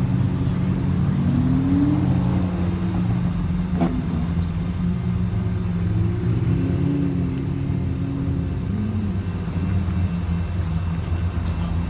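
Several supercar engines idle and rumble in a slow line of traffic. The engine note rises briefly about two seconds in and again around six to seven seconds in as cars pull through. There is a single sharp click about four seconds in.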